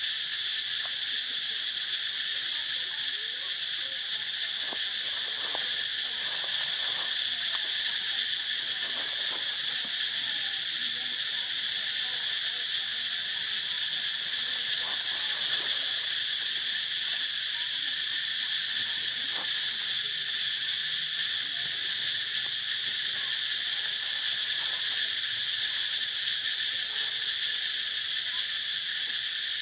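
Steady, high-pitched insect chorus droning without a break, with a few faint clicks scattered through it.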